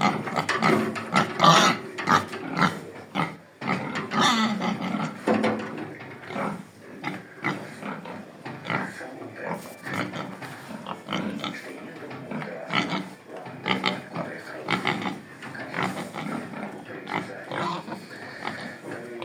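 Piétrain pigs grunting and calling continuously in irregular short bursts, with the loudest outbursts about a second and a half and four and a half seconds in.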